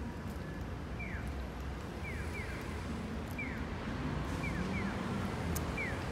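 Japanese pedestrian-crossing audible signal sounding its bird-like 'piyo… piyo-piyo' call: short falling electronic chirps in a regular alternating pattern of one chirp then a pair, about once a second, which marks a green walk light. Steady low traffic noise runs underneath.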